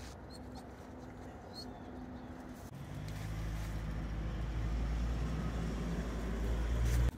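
A low engine hum, most likely a vehicle's, starts about three seconds in and grows louder, then cuts off suddenly near the end.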